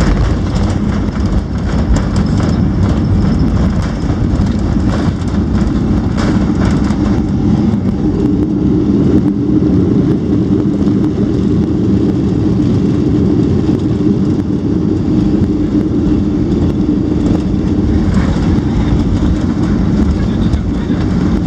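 Boeing 737 heard from inside the passenger cabin: a steady, loud low rumble of jet engine and airframe noise on the landing. A steady hum joins about eight seconds in.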